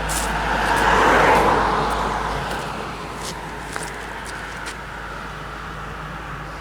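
A road vehicle passing by: its tyre and engine noise swells to a peak about a second in, then fades away into steady background noise.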